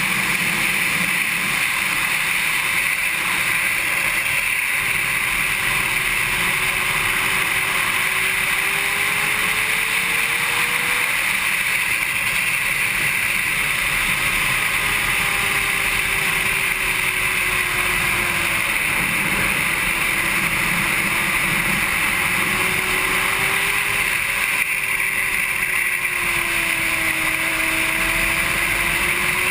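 Honda CBR600RR's inline-four engine heard from the bike under way, its pitch slowly rising and falling with the revs, under a steady loud rush of wind.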